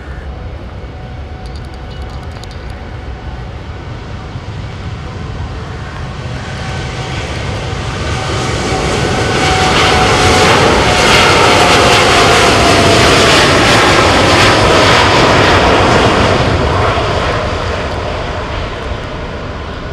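Boeing 787 Dreamliner's jet engines at takeoff power during the takeoff roll, growing louder as the airliner passes close about ten seconds in, its whine falling in pitch as it goes by, then fading as it moves away down the runway.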